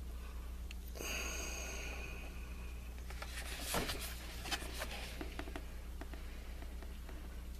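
Cardboard product box being turned over in the hands: a brushing rub about a second in, then a few light taps and knocks, the sharpest near four seconds, over a steady low hum.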